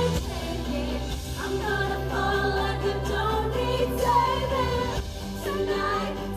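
A female pop singer singing live over backing music, with held low notes that change every second or two beneath her phrases.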